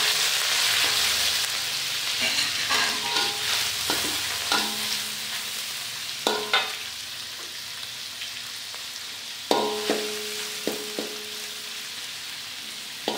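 Shrimp sizzling in hot oil and garlic in a wok, the sizzle loudest as they go in and easing off, while a metal spatula stirs them and knocks against the wok with short ringing clanks, several in a row.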